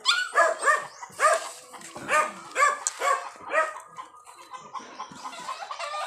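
Short animal calls repeated about twice a second, each a brief pitched cry.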